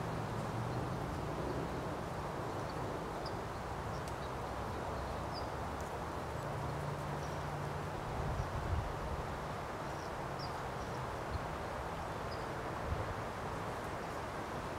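Outdoor ambience: a steady low background rumble with faint, short bird chirps scattered through it.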